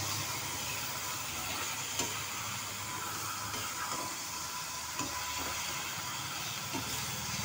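Chicken pieces and onion-tomato masala sizzling in a frying pan while being stirred, with a steady hiss and a few light clicks of the spatula against the pan, about two, five and seven seconds in.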